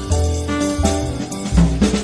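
Background music with a steady drum beat and bass under held instrumental notes, in a swing-jazz style with saxophone.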